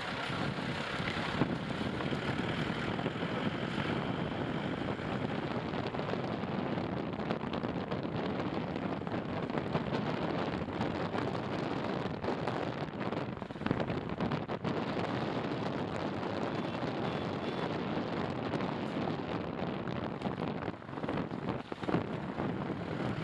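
Wind noise on the microphone of an action camera mounted on the outside of a moving car, over the car's steady road noise, with a few brief knocks around the middle.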